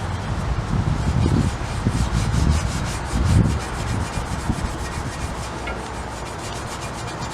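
A Scotch-Brite pad scrubbed back and forth on a Honda Ruckus scooter's metal frame, wet with WD-40, rubbing off powder coat softened by aircraft stripper. It is a continuous scratchy rub, with heavier strokes in the first half and steadier, lighter scrubbing later.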